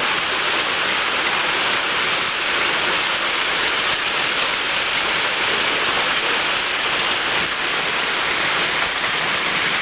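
Hailstorm: hailstones and heavy rain pelting down on a wooden arbor, pavement and lawn in a loud, steady, dense hiss.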